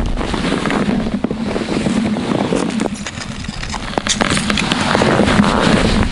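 Crunching and crackling of snow and ice, with many sharp clicks, as a metal ice scoop works slush out of an ice-fishing hole and boots shift in the snow. It is loudest in the second half.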